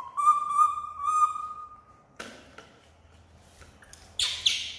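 A baby monkey's long, high, steady coo call lasting about two seconds, followed by a few short sharp clicks.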